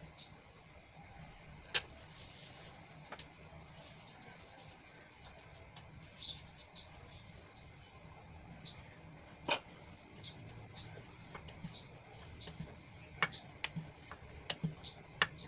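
Light clicks and taps of a wooden rolling pin, a spoon and hands on a wooden rolling board as layered puri dough is spread, folded and rolled, with one sharper click about halfway through and several more near the end. Underneath runs a steady high-pitched trill like a cricket's, which breaks off briefly late on.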